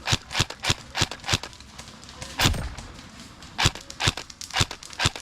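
Footsteps: about ten irregularly spaced steps, sharp and close.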